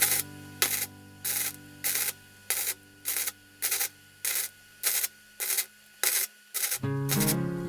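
Background music with a regular scratchy percussion beat, about three hits every two seconds, over sustained low notes. The low notes drop out about six seconds in, and a new melodic phrase starts near the end.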